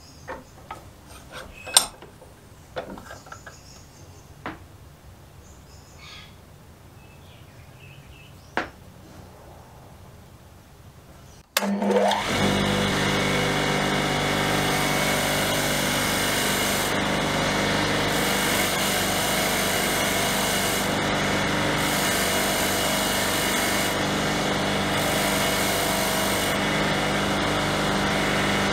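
A few light clicks and taps as a spark plug is handled. About eleven seconds in, a bench grinder is switched on, spins up with a brief rising whine, then runs steadily, with a high grinding hiss that comes and goes as the plug's rusty terminal stud is held to the wheel.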